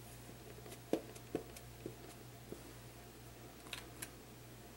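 Faint, soft taps of an ink pad dabbed onto clear stamps, four in the first two and a half seconds, then two sharper clicks near the end as the clear acrylic door of a MISTI stamp positioning tool is closed down onto the cardstock.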